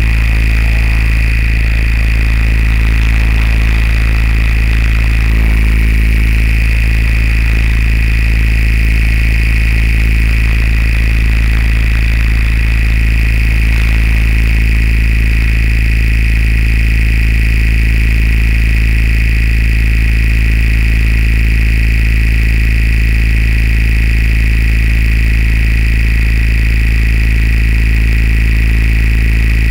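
Multirotor drone's motors and propellers running steadily, a constant hum with a high whine, shifting slightly about five seconds in as it climbs.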